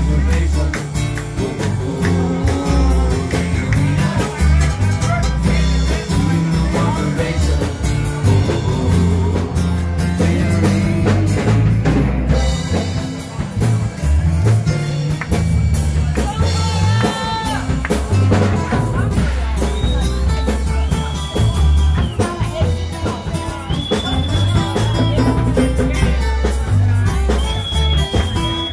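Live band music played through a PA: amplified acoustic guitar over a heavy bass line and beat, with singing that holds several long notes in the second half.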